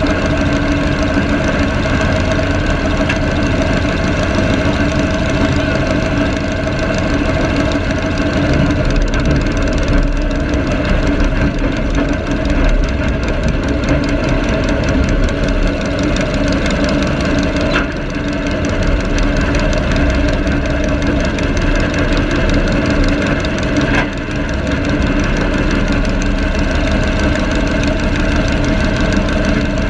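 Garden tractor engine running steadily at low speed, heard close up, with two brief dips in level about two-thirds of the way through.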